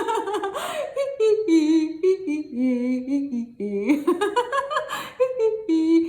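A woman's voice laughing out a long string of drawn-out 'hee' notes that step up and down in pitch, with a rising swoop about four seconds in: the 'reeling in' part of a laughter-yoga exercise.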